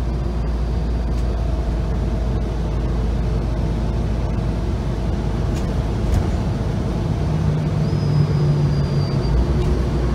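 Steady road and wind rumble of a car driving along a road, heaviest in the low end. A faint low hum rises over it for a couple of seconds near the end.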